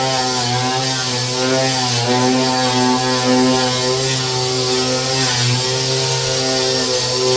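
An electric power sander running steadily against sheet steel, taking the surface rust off a car's floor panel. It makes a loud, continuous hum with a hissing grind above it, and its pitch wavers slightly as it bears on the metal.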